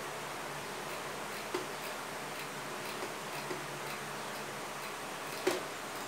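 A whiteboard being wiped with a duster: a few light taps and knocks of the duster against the board over a steady hiss, the loudest about five and a half seconds in.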